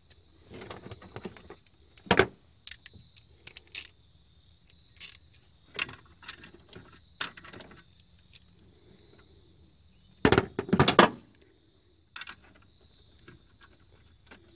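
Hands working wiring into an engine-bay fuse block: scattered small clicks, rattles and rustles of wires and metal cable terminals, with a louder burst of clatter about ten seconds in. A faint steady high whine runs underneath.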